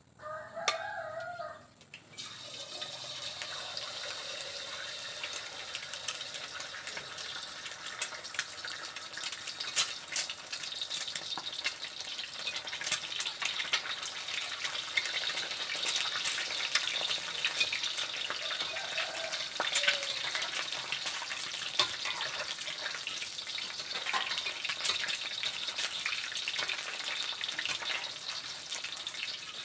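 An egg frying in hot oil in a wok, sizzling steadily with crackles and pops. The sizzle starts suddenly about two seconds in, when the egg goes into the oil.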